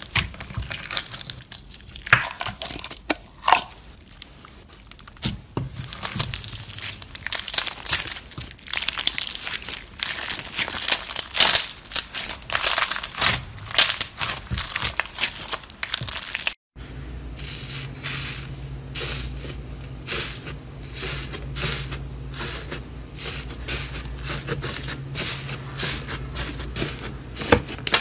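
Close-up crackling and crinkling of a crunchy material being squeezed and worked by hand. After a sudden break about halfway, a steady run of crisp crunching clicks plays over a faint low hum.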